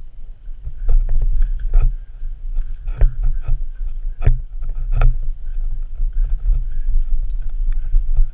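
Rumbling, bumping handling noise from a GoPro strapped to a walking Labrador retriever, the camera jostling against the dog's body, with irregular knocks as it moves.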